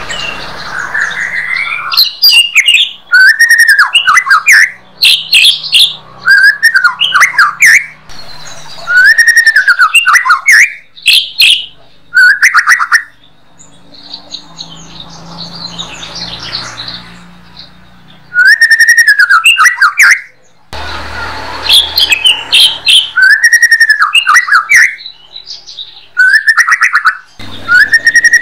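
White-rumped shama singing: loud phrases of arched whistled notes mixed with fast, sharp rattling note series, repeated every second or two with short pauses, and a quieter stretch about halfway through.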